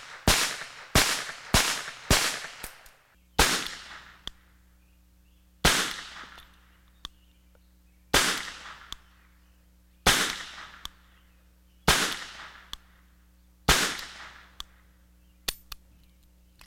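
Webley & Scott Mark IV top-break revolver firing .38 S&W rounds: four quick shots about two-thirds of a second apart, then six slower shots about two seconds apart, each trailing off in a short echo. Two faint clicks follow near the end.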